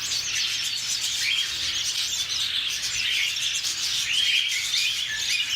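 Many small caged finches chirping and twittering at once: a dense chorus of quick, high, overlapping notes.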